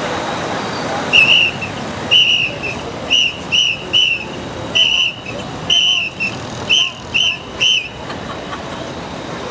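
A hand-held whistle blown in about a dozen short, sharp, high blasts in a rough rhythm, over the steady noise of a crowd.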